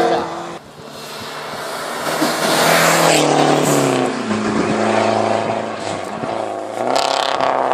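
Hill-climb race car engine at high revs, its pitch climbing as it accelerates towards the camera, then falling as the car passes about four seconds in. The pitch climbs again near the end.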